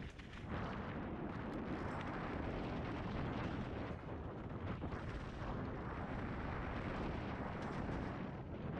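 Steady wind rush on a helmet-mounted camera's microphone, with mountain-bike tyres running over rough trail and a few light rattles, from riding a downhill trail.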